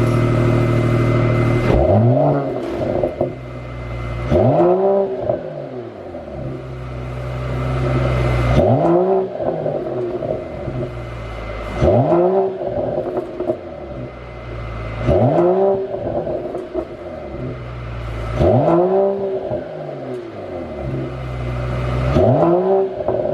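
Mercedes-AMG CLS53's turbocharged 3.0-litre straight-six engine revved from idle about seven times, each rev rising and falling back, with exhaust pops and crackles on the overrun from a pop-and-crackle tune.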